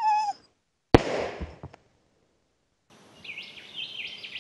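A trapped wild dog gives a brief whimpering cry, then a single gunshot rings out about a second in: the controller shooting the animal caught in the foothold trap. After a short silence, birds chirp.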